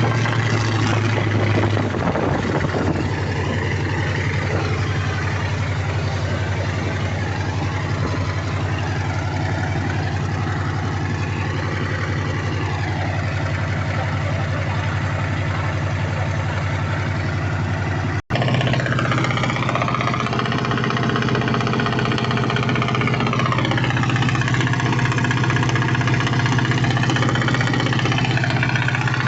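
Mitsubishi 8DC V8 diesel engine of a 15-ton boat running steadily with a deep hum, its pitch shifting slightly about two seconds in; the sound breaks off for an instant about two-thirds of the way through.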